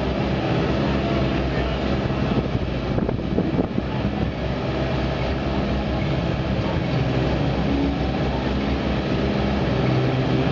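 Mini rally car's engine idling steadily, with a few brief sharp ticks about three to four seconds in.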